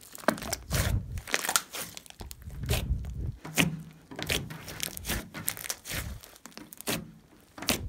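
Hands kneading and pressing a large mound of mixed slime, squeezing out trapped air in irregular crackly squelches about once or twice a second.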